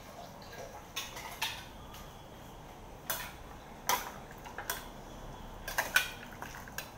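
Stainless steel ladle and utensil clinking against metal bowls as pieces of scalded pork are scooped up: a string of sharp, irregularly spaced clinks.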